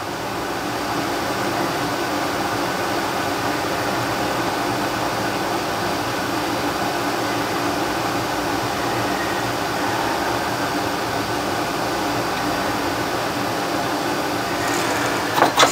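Steady, even whooshing noise of running air, as from a fan, with faint steady hum tones under it.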